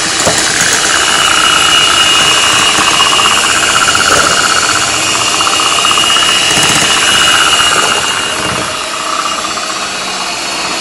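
Electric hand mixer running, its twin beaters whirring through thin chocolate cake batter in a glass bowl: a steady motor whine that eases somewhat about eight seconds in.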